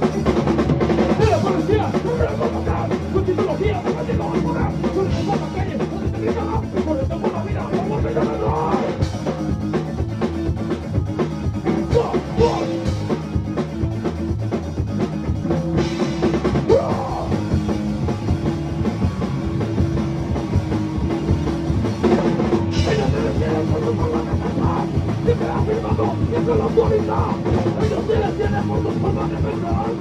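Ska-core band playing live: a drum kit and an electric guitar through amplifiers, loud and steady.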